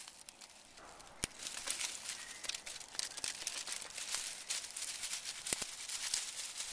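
Dry dead leaves and twigs being handled and piled for a fire, crinkling and crackling, with two sharp snaps.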